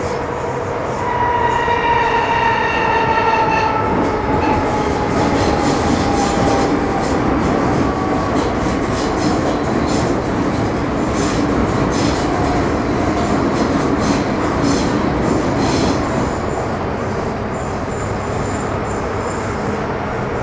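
Metro Cammell M-Train electric multiple unit with GEC GTO-chopper control, running steadily through the tunnel with continuous wheel and track rumble. A whine with overtones comes in about a second in and slides slowly down in pitch, fading by about eight seconds in.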